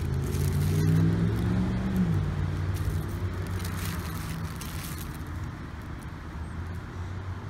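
A passing motor vehicle's engine, rising in pitch over the first two seconds and then fading away.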